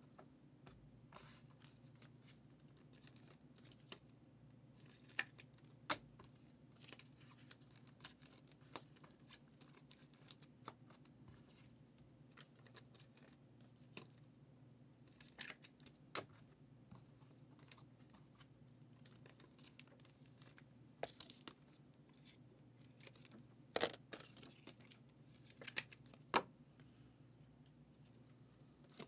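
Foil trading-card pack wrappers being torn open and crinkled, heard as scattered short rips and crinkles, the loudest near the end, over a faint steady hum.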